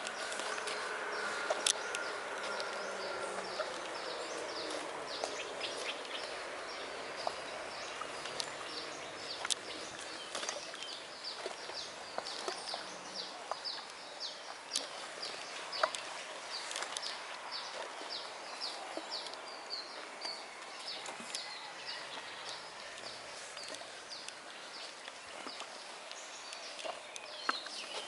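Outdoor rural ambience with short high chirps repeating about two to three times a second. A buzzing insect hums during the first few seconds and fades away, and there are a few scattered sharp clicks.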